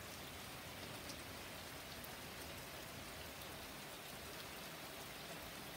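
Steady rain falling on pavement and lawns: an even hiss with a few faint drip ticks.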